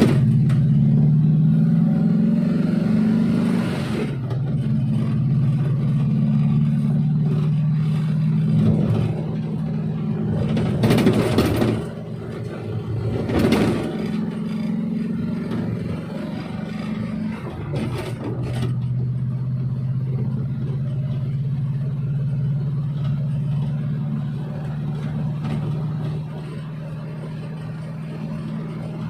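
Suzuki Espass minivan engine running while driving, its pitch rising in the first few seconds and then holding fairly steady, with brief rushes of noise about eleven and thirteen seconds in.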